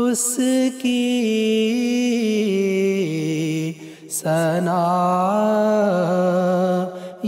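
A man singing an Urdu nazm solo, holding long wavering melodic notes in two phrases with a short breath about four seconds in. Only the voice is heard, with no instruments.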